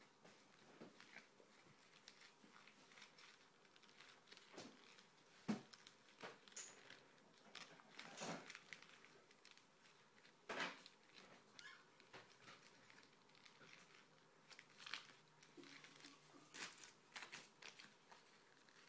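Faint, scattered crinkling and rustling of glossy magazine paper being handled by a baby's hands, with one sharp click about five seconds in.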